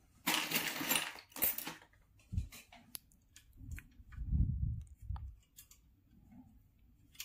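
Hands working on thin wires at a 3D printer's hot end: a scratchy rustle in the first couple of seconds, then low bumps and scattered small clicks.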